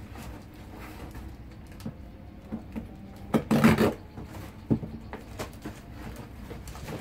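Things being handled and moved by hand: scattered knocks and scrapes, with a louder scraping rustle about three and a half seconds in.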